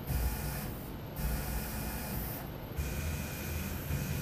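Stepper motors of a CNC-converted Optimum benchtop mill driving the axes under jog: a hissing whine with a steady high tone, running in several short moves with brief pauses between them.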